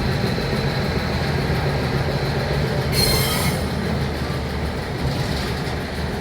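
Railroad equipment rolling slowly on the track with a steady low rumble, and a brief high-pitched screech about three seconds in.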